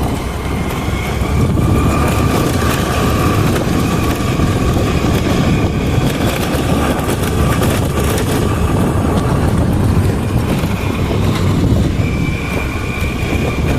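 Steady road and engine noise of a moving vehicle, with a faint high whine running through it.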